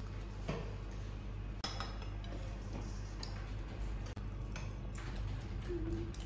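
Metal spoons clinking and scraping in stainless steel bowls: a handful of light, separate clicks over a steady low hum.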